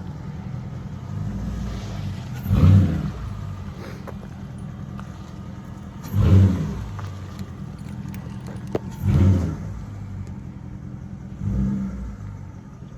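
Car engine idling with a low rumble, revved in four short blips spaced about three seconds apart, each rising and dropping back to idle.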